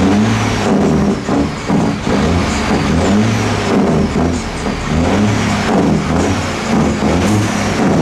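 Semi truck's diesel engine running loudly as the rig rolls slowly forward.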